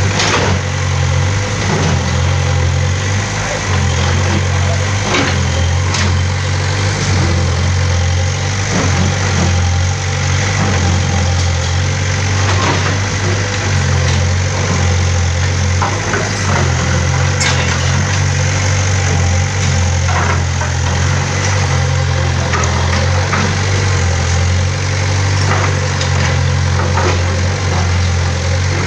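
SK50UR mini excavator's diesel engine running steadily, with scattered sharp knocks and clatters from the bucket working through broken bricks.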